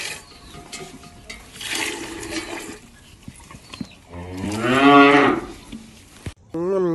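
Hand milking, with streams of milk hissing into a metal pail, then a cow moos once, a long, loud call about four seconds in that rises and falls.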